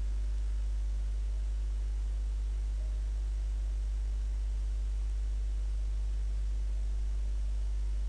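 Steady low electrical hum with faint hiss and no other events: mains hum picked up by the recording setup.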